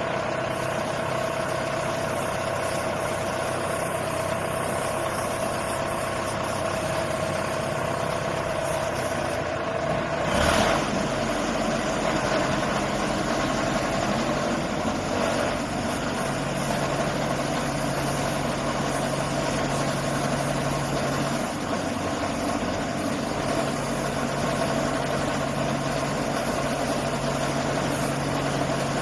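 Engine of a tracked water well drilling rig running steadily. There is a brief louder knock about ten seconds in, and a lower hum joins from about sixteen seconds.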